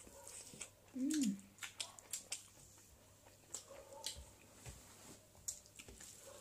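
Close-miked eating sounds: scattered soft wet clicks and smacks of chewing and of fingers mixing rice and pork gravy on a steel plate. A short hummed "mm" comes about a second in.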